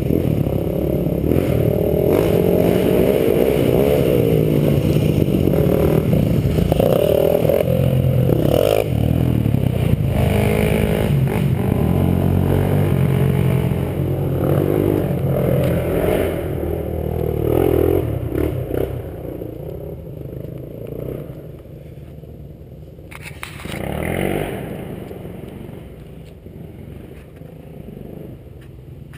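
Motocross dirt bike engine revving up and down as the bike rides the track, its pitch rising and falling with the throttle. The engine eases off about two-thirds of the way through, with one short burst of throttle near the end.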